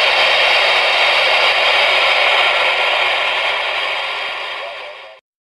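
Open-squelch static hissing from the Ranger RCI-69FFB4 radio's speaker after the other station unkeys, steady, then fading away near the end and cutting off.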